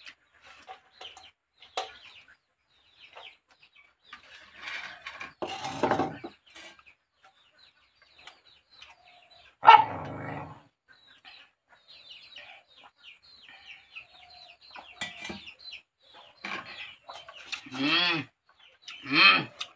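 Chickens clucking with many short calls throughout, and two louder arching calls near the end. A sharp knock about halfway through is the loudest sound.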